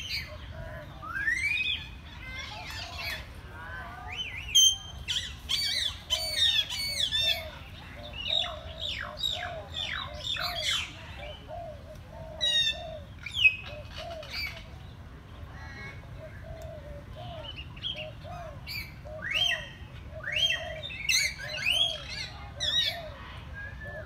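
Aviary birds, parrots among them, calling: many short, shrill squawks and whistles that sweep up and down in pitch, over a soft lower note repeating steadily underneath.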